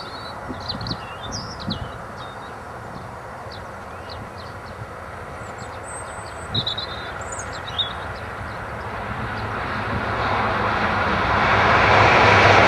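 Peppercorn A1 Pacific steam locomotive 60163 approaching at speed: a distant rumble that swells into a loud rushing noise, growing steadily louder over the last few seconds.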